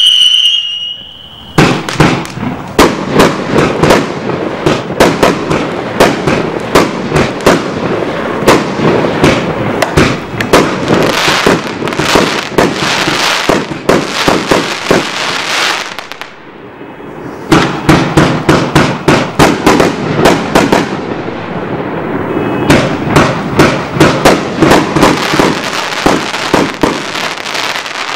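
Gemstone 'Here We Go' multi-shot firework cake firing. A whistling shot ends about a second in, then comes a rapid, dense barrage of shots and crackling bursts. It pauses briefly around the middle, then the barrage starts again.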